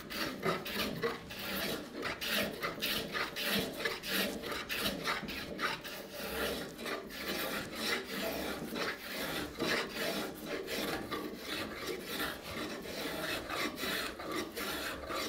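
Hand plane taking repeated quick strokes along a wooden billet held in a bench vise, each pass a rasping shave of wood as it squares the stock and smooths away saw marks.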